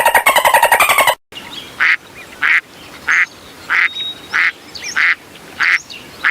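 A duck quacking at an even pace, about eight short quacks roughly two-thirds of a second apart, starting after a rapid rattling sound that cuts off about a second in.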